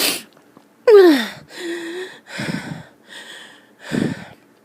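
A person's harsh coughing fit: several hard coughs, the loudest about a second in breaking into a falling voiced tone, with gasping breaths drawn in between, one of them carrying a whistling tone.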